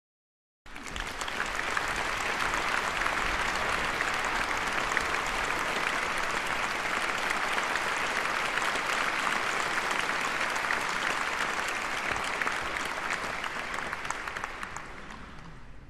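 Audience applauding in a concert hall. The clapping starts abruptly about half a second in, holds steady, and fades away near the end.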